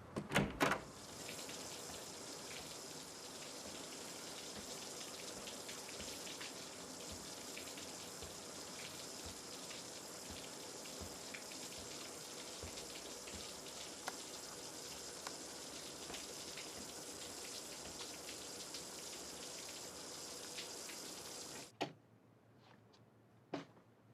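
Water running steadily, starting after a couple of sharp clicks and cutting off abruptly near the end, followed by a few faint clicks.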